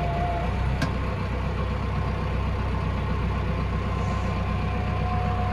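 Case diesel tractor engine running steadily, heard from inside the cab, with a faint steady whine on top and one sharp click about a second in.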